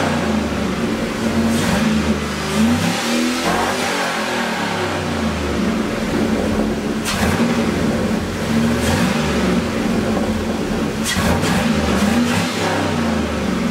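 Swapped 5.3-litre LS V8 in a 1988 Chevrolet Caprice, running through modified truck headers, an H-pipe and Thrush Turbo mufflers. It idles and is blipped up and back down a few times.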